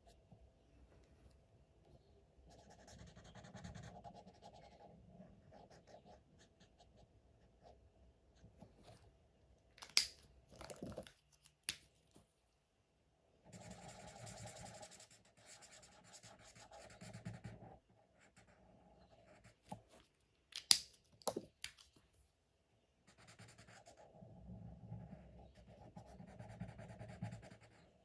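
Felt-tip markers scratching across paper in three stretches of colouring strokes, with a few sharp clicks in the gaps between them as one marker is swapped for another.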